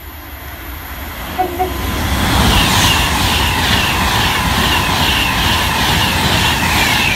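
A train running into the station, growing louder over the first couple of seconds and then staying loud. From about two and a half seconds in, a short falling squeal repeats a little over twice a second.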